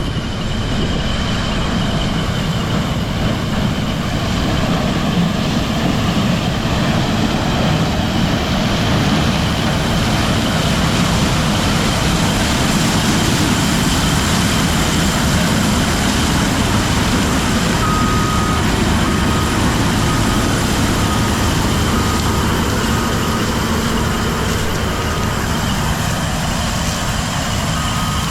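Heavy farm machinery running steadily at work in the corn harvest, a loud constant engine and machine drone. From about two-thirds of the way in, a short electronic beep repeats a little faster than once a second.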